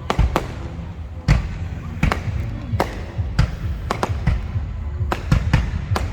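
Fireworks shells bursting overhead: a string of sharp bangs at irregular intervals, roughly two a second, with a cluster of them near the end.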